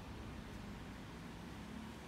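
Steady low hiss and hum of room noise, with no distinct sound standing out.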